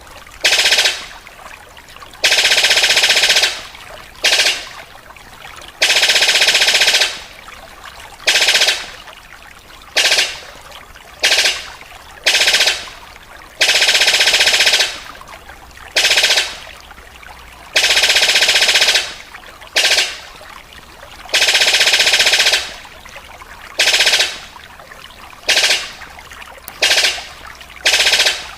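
Sicklebill bird calling in repeated rapid rattling bursts that sound like machine-gun fire. The bursts come about every one to two seconds and last from half a second to a second and a half each.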